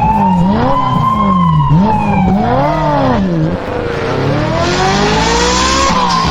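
Cartoon vehicle sound effects: a siren-like wail gliding slowly up and down over engine noise.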